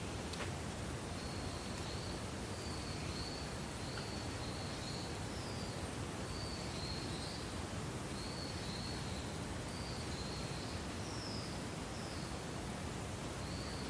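High, thin chirping calls from a small animal, repeated about once a second with short pauses, over a steady background hiss.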